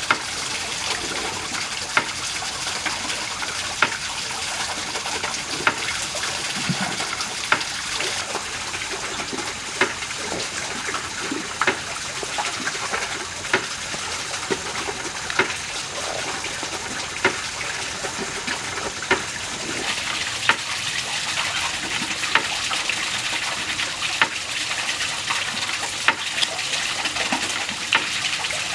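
Steady rushing noise like running water, with a sharp click about every two seconds.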